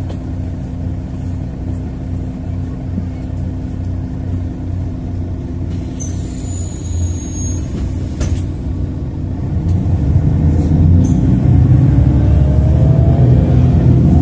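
City bus engine heard from inside the bus: a steady low running at the stop, then the bus pulls away and the engine gets louder about ten seconds in, its pitch rising as it speeds up. A brief high, falling squeal comes about six seconds in.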